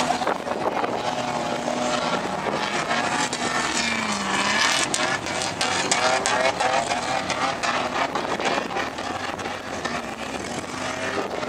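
4x4 vehicle engines revving hard during dune driving on sand, the engine note rising and falling, with a run of sharp crackles in the middle.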